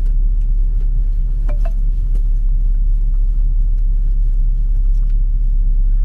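Steady low rumble of road and drivetrain noise heard inside a 2012 Ford Focus while driving, with no knock from the front suspension: its strut top bearings and top mounts have just been replaced.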